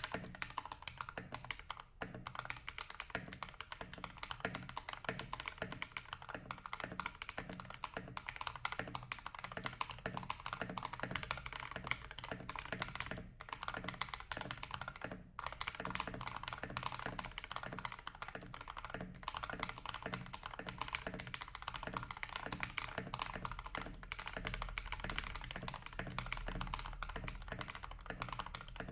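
Royal Kludge RK G68 mechanical keyboard with KTT Kang White V3 linear switches and PBT keycaps, typed on fast and continuously: a dense stream of deep, thocky keystrokes, with two brief pauses around the middle.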